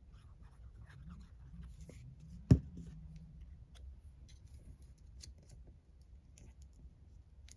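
Paper and card pieces handled and positioned on a craft desk: faint rustling and light clicks, with one sharp knock about two and a half seconds in.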